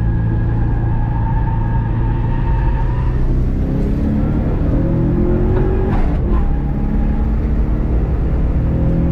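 Turbocharged EJ207 2.0-litre flat-four of a GC8 Subaru Impreza under way: steady revs at first, then revving up hard, with a short sharp break about six seconds in as it shifts up, and revs climbing again.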